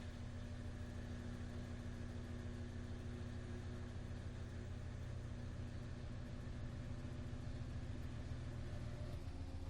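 Samsung WD136 front-load washer-dryer running its cycle: a steady motor hum with a few fixed tones that shift slightly near the end.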